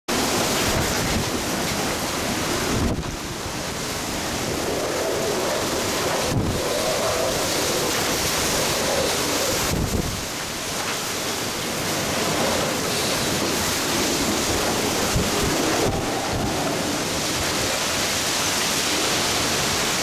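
Typhoon-force wind and driving rain blowing in strong gusts, with heavy wind buffeting on the microphone and a few low thumps.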